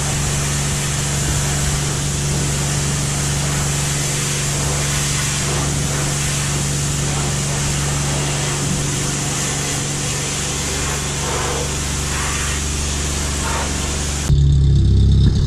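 Steady hum with a hiss from car-wash machinery. About fourteen seconds in it cuts suddenly to a louder, deeper car-engine rumble.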